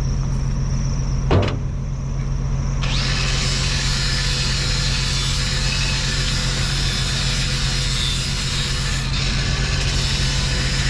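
Angle grinder with a wire brush starting up about three seconds in and running steadily, scouring metal, over the steady hum of an idling engine; a single sharp knock comes just before it starts.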